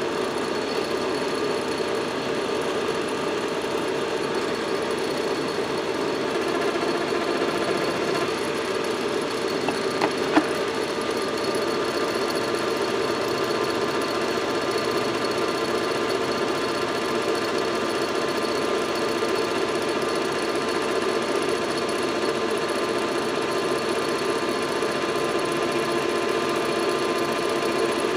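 Metal lathe running steadily, with a light skim cut taken by a carbide tool across the copper commutator of a John Deere 420 starter armature to true it up. A steady hum with a high whine over it, and two sharp clicks about ten seconds in.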